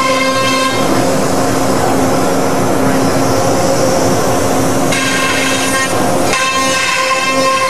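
Freedom Patriot CNC router's spindle running with a steady whine. From about a second in until about six seconds a rougher rushing noise takes over as the bit cuts through the sheet, then the plain whine returns.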